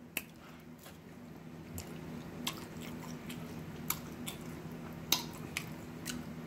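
Close-up chewing of sauce-covered French fries, with wet mouth smacks and clicks at irregular intervals, about six or seven in all.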